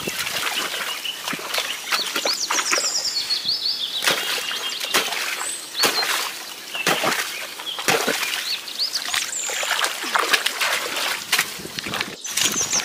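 Muddy pond water splashing and sloshing in irregular bursts as people wade knee-deep and dig mud at the bank, with small birds chirping in short repeated phrases.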